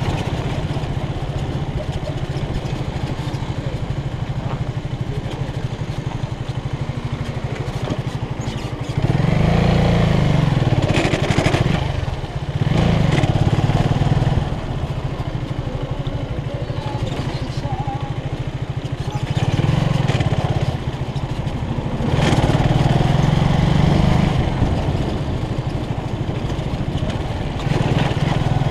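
Small-displacement motorcycle engine running at low road speed. The engine note swells louder several times, for a second or two each, as the throttle is opened.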